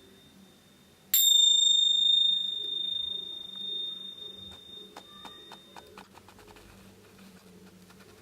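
A small metal bell struck once about a second in, ringing with a clear high tone that slowly fades away over several seconds. A few faint light clicks follow near the end.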